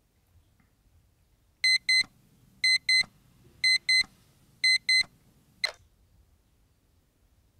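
Digital bedside alarm clock going off: a high double beep repeated once a second, four times. A single sharp click follows as it is switched off.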